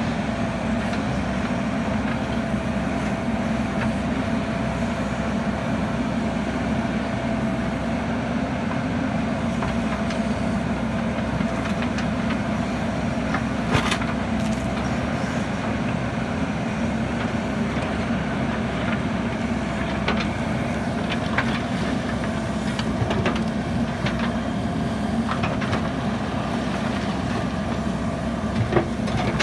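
JCB backhoe loader's diesel engine running steadily under work, with a faint steady whine over the drone and a few sharp knocks, the loudest about halfway through.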